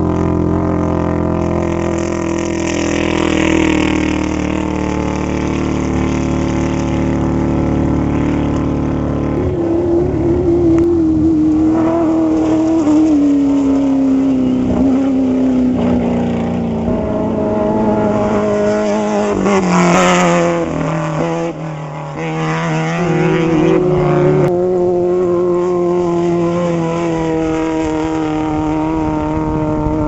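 Engines of off-road race vehicles running at high revs as they pass. The engine note jumps up about a third of the way in, slides slowly down, drops away briefly, then picks up again near the end.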